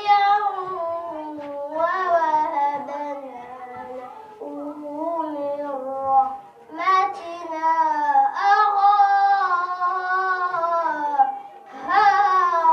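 A child's voice chanting Quran recitation in the melodic tajwid style: long held notes that waver and slide, sung in phrases with breath breaks about six seconds in and again near the end.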